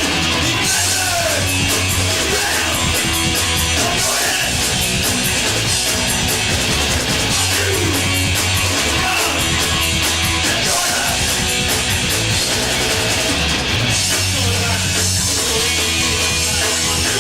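Punk rock band playing live: distorted electric guitars, bass and a drum kit with crashing cymbals, loud and steady throughout.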